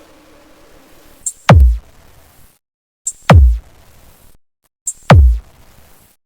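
Electronic sound-check remix: three heavy bass kicks, each a deep boom that sweeps sharply down in pitch, spaced about two seconds apart with near-silent gaps between. Each boom is led by a short sharp tick.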